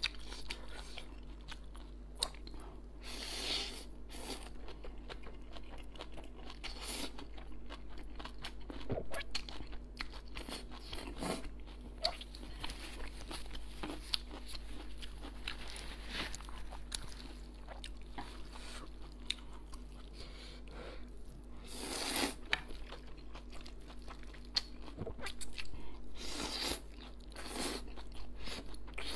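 Close-miked chewing and slurping of stir-fried wide rice noodles: wet mouth clicks throughout, with several longer slurps, the loudest about 22 s in.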